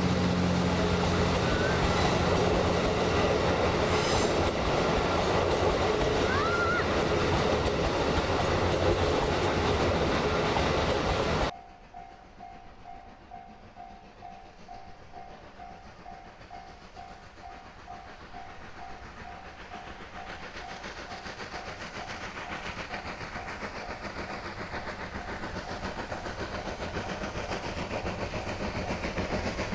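A steam locomotive passing close by, loud and dense, until the sound cuts off abruptly about eleven seconds in. Then a level-crossing warning bell rings about twice a second while the sound of an approaching train slowly grows louder.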